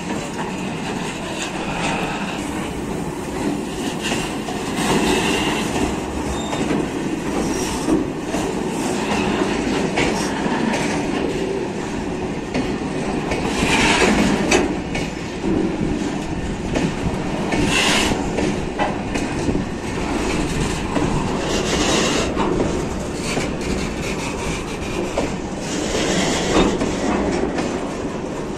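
Empty freight flat wagons of a long goods train rolling slowly past on freshly relaid track, with a steady rumble of wheels on rail. Loud clacks come every few seconds as wheelsets cross a rail joint, with a few brief high wheel squeals.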